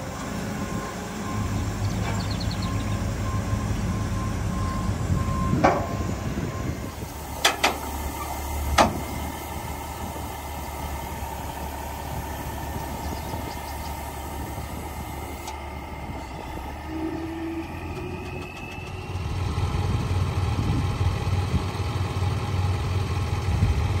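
Heavy diesel engine idling with a steady low rumble, with a few sharp knocks between about six and nine seconds in. The rumble grows louder near the end.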